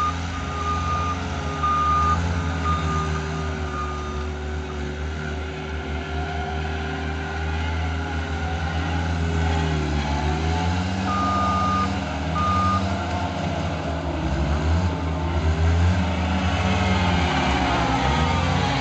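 Diesel engine of a John Deere D-Series skid steer running and working, its pitch rising and falling with the load in the second half. A backup alarm beeps several times in the first few seconds and twice more past the middle.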